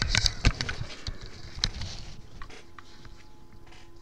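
Irregular clicks and knocks, like a phone being handled, thick in the first two seconds and then thinning out over a faint steady hum.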